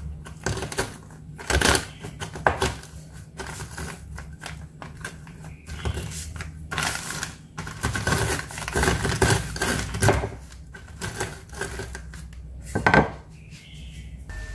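Oreo cookies in a plastic bag being crushed under a stainless steel rolling pin: irregular cracking and crunching with crinkling plastic, and a few louder knocks of the metal pin on the counter.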